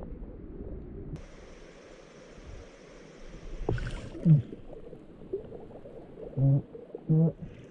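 Water sloshing around a camera held at and just under the surface of a shallow, clear river, muffled at first and brighter about a second in. A sharp knock comes about halfway through, followed by a short low-pitched sound falling in pitch, and two more short low-pitched sounds come near the end.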